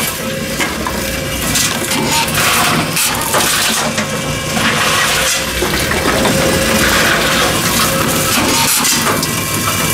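A Tomra T-53 reverse vending machine taking in bottles one after another, with a run of knocks and rattles as each bottle goes through the intake. Music plays in the background.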